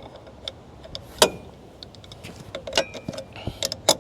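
Hand tools clinking and knocking against the metal of a truck's engine-mounted air compressor as a wrench works at a stuck fitting: irregular sharp metallic clinks, some ringing briefly, the loudest about a second in and several close together near the end.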